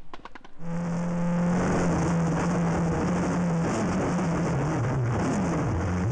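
Citroën Xsara WRC rally car's turbocharged four-cylinder engine heard from an onboard camera at speed on a gravel stage, starting about half a second in. The engine note holds high, then falls and climbs again several times as the driver lifts and accelerates, over a steady rushing hiss of gravel and wind.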